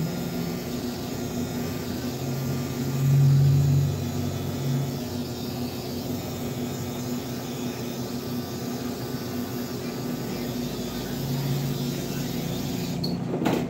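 Electric hair clippers buzzing steadily, a low even hum, swelling louder for about a second a few seconds in and again near the end, with a sharp click just before it ends.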